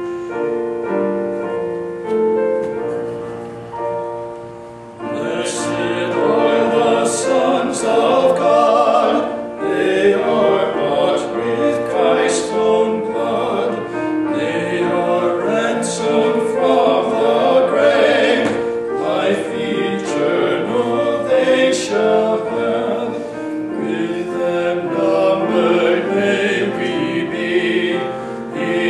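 A hymn sung as a duet by two men with keyboard accompaniment. The first five seconds or so are the instrumental introduction, and the voices come in about five seconds in.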